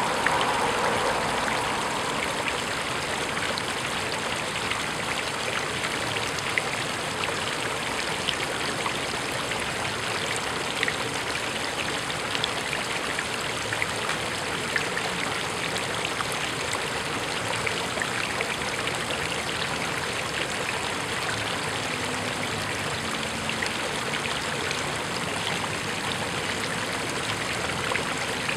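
Fountain jets of water, including one from a fish-shaped spout, splashing steadily into a shallow pool, with many small drips pattering on the surface.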